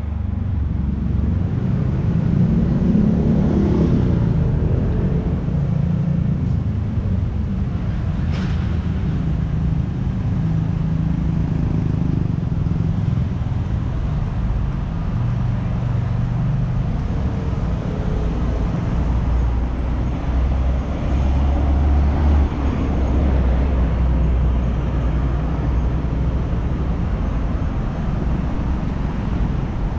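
Road traffic on a city street: a steady low rumble of passing vehicles, swelling somewhat about two-thirds of the way through.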